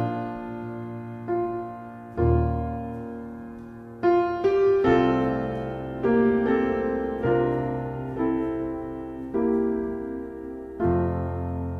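Slow solo piano music: single notes and chords struck about every second or two and left to ring out over low bass notes.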